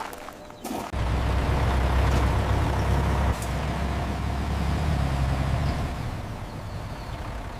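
A vehicle engine starting up with a steady low rumble about a second in, after a couple of short knocks.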